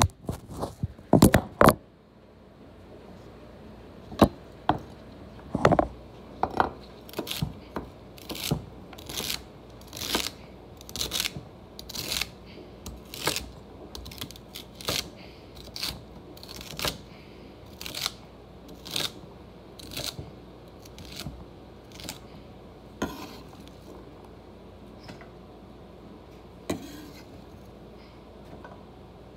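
A chef's knife chopping celery on a wooden cutting board, a steady run of sharp chops about two a second that thins out to a few lighter taps after about 22 seconds. A few loud knocks come in the first two seconds.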